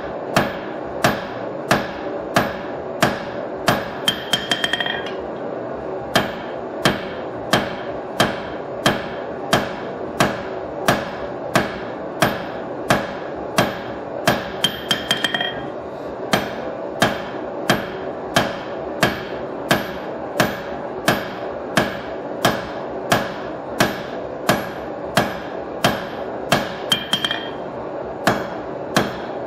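Hammer blows on red-hot steel on an anvil, forging a knife blade, in a steady rhythm of about two strikes a second over a steady hum. Three times there is a quick run of lighter taps that leaves the anvil ringing.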